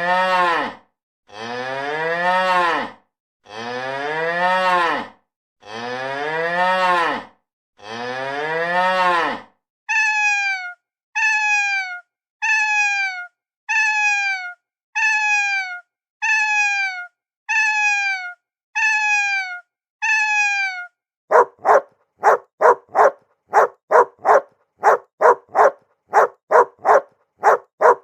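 A cow mooing five times in long, rising-then-falling calls. Then a cat meowing ten times in short, evenly spaced falling meows. From about 21 seconds in, a dog barking in quick bursts of short barks.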